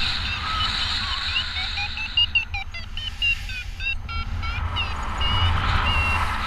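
Paragliding variometer beeping in short tones of shifting pitch, a few a second: its climb signal as the wing turns in lift. Steady wind noise on the microphone underneath.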